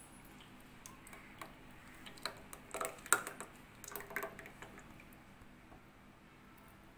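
Thickened badam (almond) milk being poured from a pot into a stainless-steel tumbler, with several light clicks and taps in the first five seconds before the pour goes quieter.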